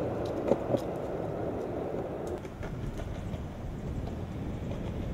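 Cruiser skateboard with soft orange wheels rolling over concrete: a steady rumble with a few sharp clicks about half a second in, easing a little after two seconds or so.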